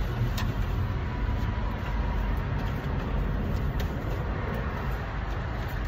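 Steady low rumble of vehicle noise, with a few faint clicks over it.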